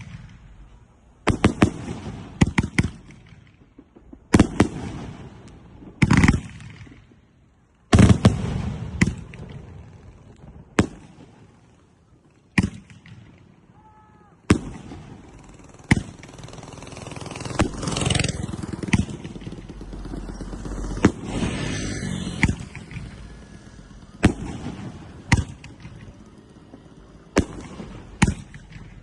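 A 2-inch professional firework cake firing: a run of loud, sharp bangs about one to two seconds apart, with a denser stretch of crackling in the middle.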